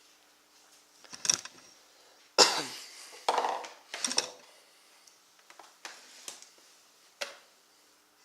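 A run of irregular knocks and clatters from objects being handled and set down on a hard surface. The loudest knock comes about two and a half seconds in, with several lighter ones after it.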